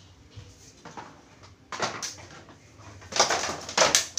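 Rustling and scraping of things being handled, in short noisy bursts: one just under two seconds in, and a louder pair near the end.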